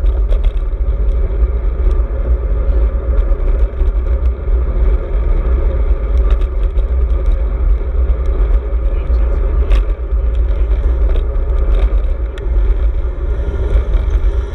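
Wind buffeting the microphone of a handlebar-mounted GoPro on a moving road bike: a loud, steady low rumble.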